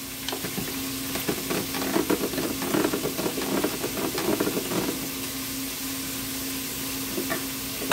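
Hand-cranked rotary drum grater shredding a block of mozzarella: an irregular scratchy grinding as the drum turns against the cheese, busiest in the middle, over a steady low hum.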